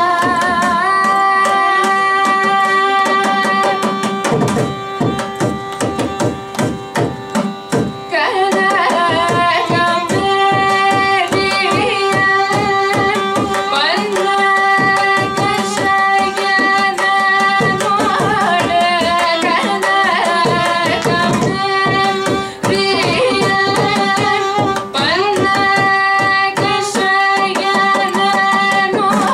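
Carnatic vocal music: a woman singing with ornamented, gliding notes, shadowed by violin, over mridangam strokes. A few seconds in, the held notes thin out briefly and the drumming stands out.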